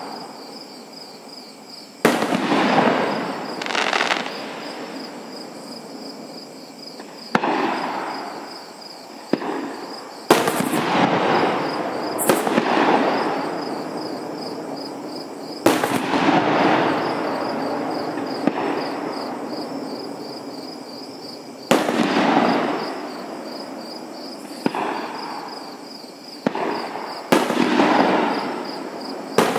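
Aerial fireworks shells bursting, about ten sharp bangs a couple of seconds apart, each followed by a long rolling echo that dies away over several seconds.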